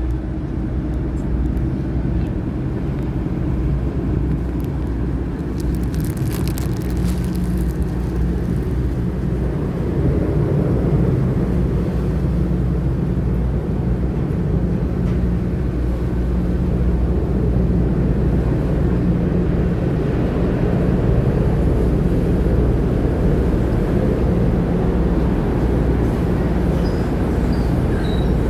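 An engine running steadily with a low, even drone, with a brief patter of clicks about six seconds in.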